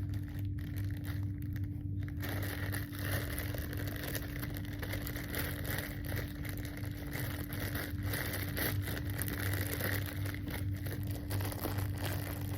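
Packaging crinkling, rustling and tearing as it is cut open with scissors and handled, a continuous stream of small crackles over a steady low hum.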